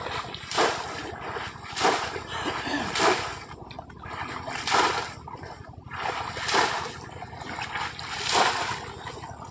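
A bamboo polo trap being plunged into shallow water again and again: six splashes, one about every one and a half to two seconds.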